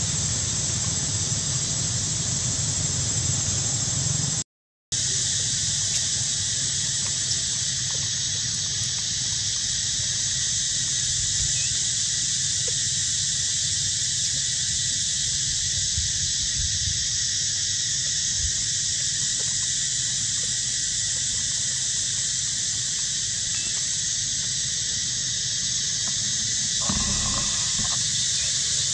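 Steady high-pitched drone of an insect chorus, with a brief dropout about four and a half seconds in.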